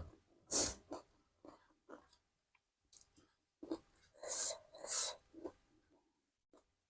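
Close-miked eating sounds: chewing and wet mouth noises in irregular bursts, with a few louder hissy ones about half a second in and around four to five seconds in.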